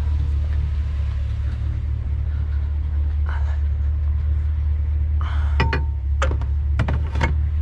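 A vehicle engine idling with a steady low rumble. A few sharp knocks and clicks come in quick succession in the second half, as things are handled.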